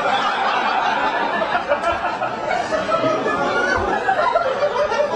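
Audience laughing together at a joke: many voices at once in a steady mass of laughter.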